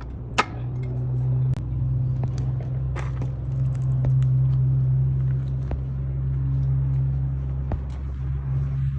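A car engine running steadily with a low hum, picking up slightly about a second in, with scattered sharp clicks over it.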